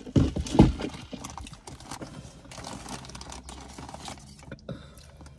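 Two loud knocks in the first second as a plastic drink cup is set down into a car's cup holder, followed by light clicking and crinkling of paper sandwich wrappers.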